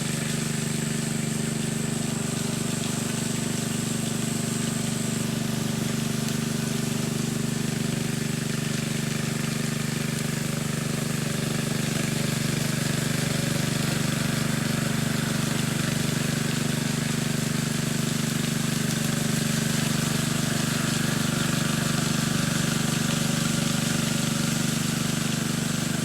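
An engine running steadily at a constant speed, a continuous drone with no change in pitch or level.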